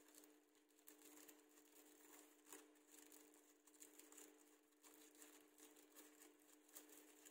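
Near silence: faint crinkling and rustling of crepe paper as it is rolled around a spoon by hand, over a steady low hum.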